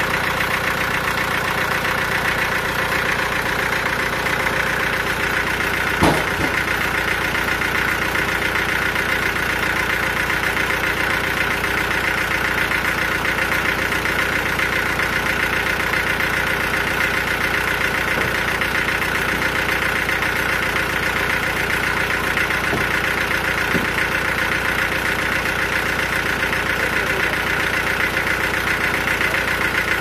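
Sawmill machinery running steadily, a constant mechanical drone with a high whine held at one pitch, and one sharp knock about six seconds in.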